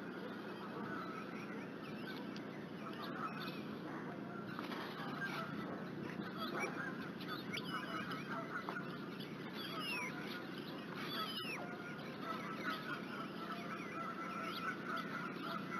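Outdoor bird ambience: a steady run of short repeated calls throughout, with thin chirps from small songbirds now and then, more of them in the second half.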